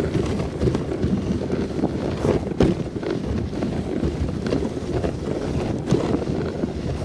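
Dog sled running over a snow trail: the runners scrape and rumble steadily over the snow, with scattered knocks as the sled jolts over bumps, and wind buffeting the microphone.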